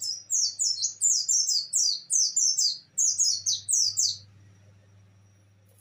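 Caged white-eye (pleci) singing in the rapid 'nembak' style: a fast run of sharp, high, downward-sweeping notes, about four a second, with a short break about three seconds in, stopping about four seconds in.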